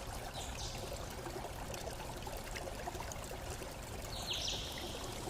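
Faint steady flowing-water noise like a trickling stream, with two brief higher hisses, about half a second in and near the end.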